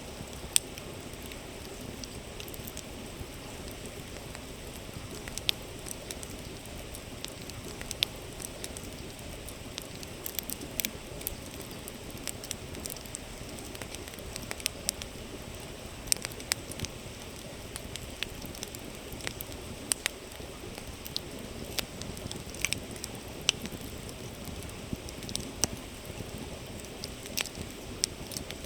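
Wood campfire crackling, with irregular sharp pops, over the steady rush of a flowing river.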